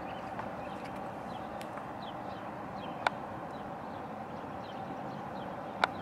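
Steady outdoor background noise with faint, short, high falling chirps scattered throughout, and two sharp clicks, one about three seconds in and one near the end.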